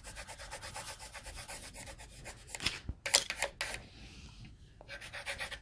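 Coloured pencil scribbling on paper in rapid back-and-forth strokes, about ten a second, with a few louder, slower strokes a little past the middle.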